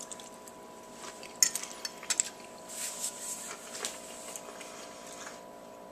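A metal fork clicking a few times against a ceramic plate as it is handled and set down, with a short soft scrape between the clicks.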